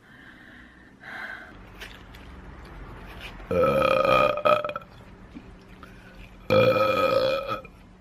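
A woman burps twice, two long loud burps of about a second each, some three seconds apart.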